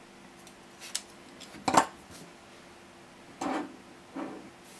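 Plastic handling sounds as an Olympus LI-50B Li-ion battery is fitted into a 3D-printed plastic charger cradle: a couple of light taps, a sharp click just under two seconds in, then two short sliding scrapes near the end.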